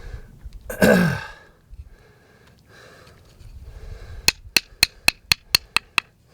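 A man lets out a loud, breathy exhale falling in pitch about a second in, the breath of someone who has just worked a bow drill to an ember. Near the end comes a quick run of about nine sharp clicks, about four a second.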